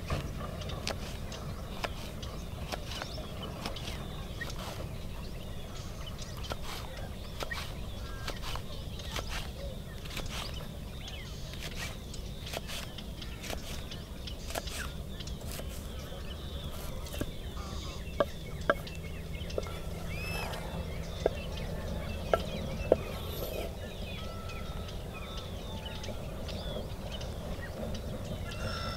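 Kitchen knife chopping green chillies on a wooden board in quick repeated strokes, with poultry calling in the background. Several sharper, louder knocks come about two-thirds of the way through, over a steady low hum.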